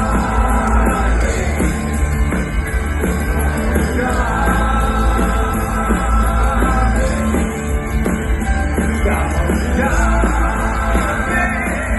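Rock band playing live and loud, a passage without sung words over heavy bass and drums.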